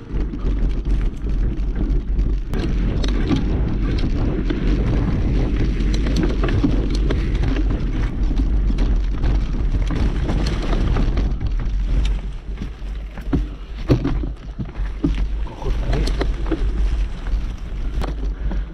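A mountain bike ridden over rough trail, heard from a camera on the rider or bike: wind rumbles on the microphone while the bike rattles and knocks over the ground. About two-thirds of the way through the rumble eases and separate knocks stand out more.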